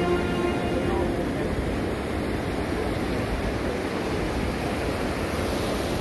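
Ocean surf breaking and washing up a sandy beach in a steady rush of noise, a little brighter near the end as a wave washes in around the feet.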